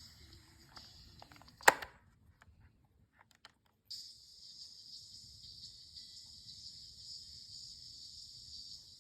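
Panasonic RQ-V201 portable cassette player: faint, thin-sounding tape playback, then one loud mechanical click of the player's controls, a few small clicks of the tape mechanism, and a short silence before playback starts again about four seconds in.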